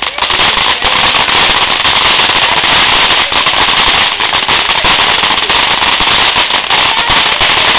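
Firecrackers going off in a dense, continuous rapid crackle of small bangs, starting abruptly and keeping up without a break.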